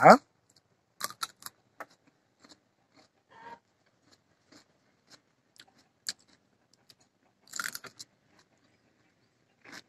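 A man biting into and chewing a raw cucumber: a few separate crisp crunches a couple of seconds apart, with quiet chewing in between.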